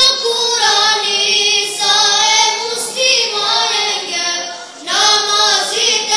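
A high voice singing slow, drawn-out melodic phrases without accompaniment, with a short break about five seconds in before a new phrase begins.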